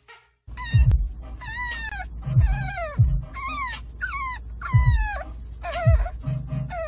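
A French bulldog puppy whining in a quick string of falling cries, about two a second, over a steady low rumble.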